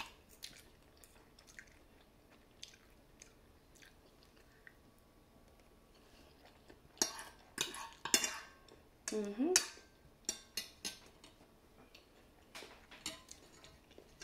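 Faint chewing of noodles, with scattered clicks and scrapes of a metal fork and spoon on a ceramic plate. A busier run of clinks comes about seven seconds in, followed by a brief rising hum-like voice sound.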